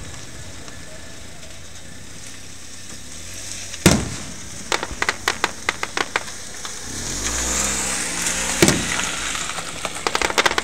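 Aerial firework shells bursting with a sharp bang, twice, each followed by a rapid run of crackling from crackle-effect stars.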